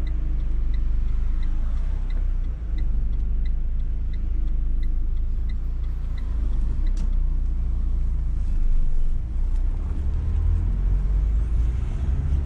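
Renault car driving slowly in town, heard from inside the cabin: a steady low engine and road rumble that grows a little louder in the second half. Over it, a light even ticking runs about three times a second and stops about six seconds in, and there is a single click about seven seconds in.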